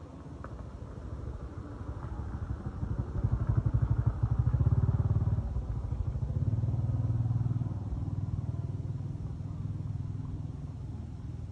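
Motorcycle engine running, growing louder over the first few seconds, loudest about four to seven seconds in, then somewhat quieter.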